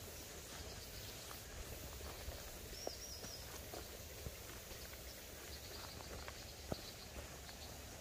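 Quiet outdoor ambience with a low steady rumble and the light steps of rubber boots on a dirt path through plants, a few soft taps among them, the sharpest about two-thirds through. Faint high bird chirps come about three seconds in and again near the end.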